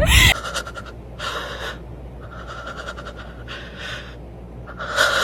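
Heavy breathing of someone out of breath from exercise: a run of loud breaths in and out, about one a second.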